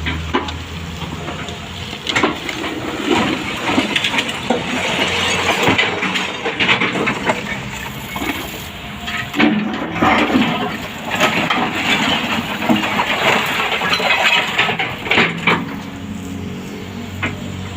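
Sany excavator engine running while debris is broken and shifted, with repeated crashes and clatter of rubble and breaking material throughout.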